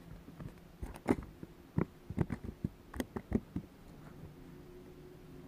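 A crappie flopping on the carpeted deck of a bass boat: a run of irregular slaps and thumps that stops about three and a half seconds in, after which a low steady hum is left.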